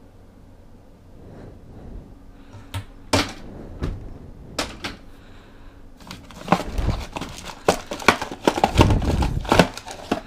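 Kitchen cupboard being opened and its shelf rummaged by hand: a few separate clicks and knocks, then from about six seconds in a dense run of clattering, knocking and rustling as items are pulled off the shelf.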